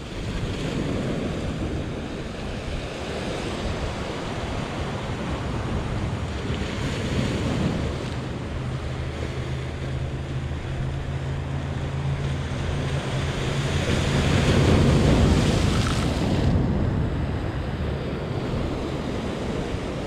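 Sea surf breaking and washing over the boulders of a rocky shore, with wind on the microphone. The surf swells loudest a little past the middle, and a faint low hum runs for a few seconds in the middle.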